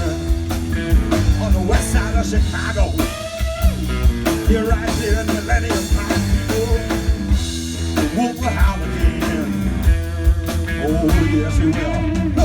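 Electric blues band playing live: drum kit, bass and a bending lead line in an instrumental passage, with no vocals transcribed.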